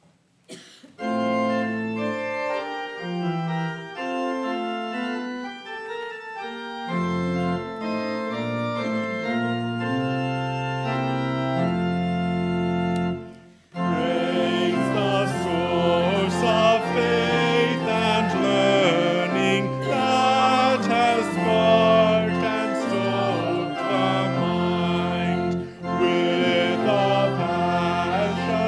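Church organ playing a hymn introduction in held chords, with deeper bass notes joining about seven seconds in. After a brief break about halfway through, voices begin singing the hymn over the organ.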